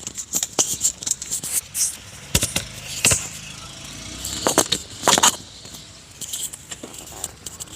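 Handling noises: an irregular run of clicks, scrapes and light rattles, with a few louder knocks about two and a half, three, four and a half and five seconds in.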